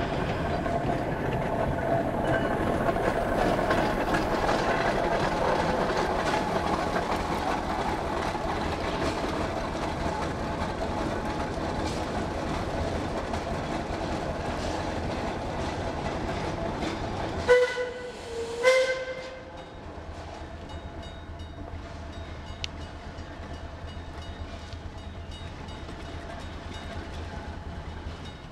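Climax geared steam locomotive running with a steady clatter. About seventeen seconds in it gives two short blasts on its chime-like steam whistle, about a second apart. Then it runs on more faintly, further off.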